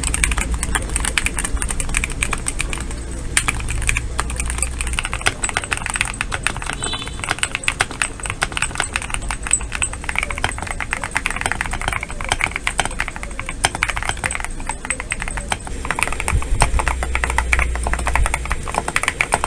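Fast, continuous typing on a modded GMK67 mechanical keyboard fitted with tactile switches: a dense, uneven patter of keystroke clicks.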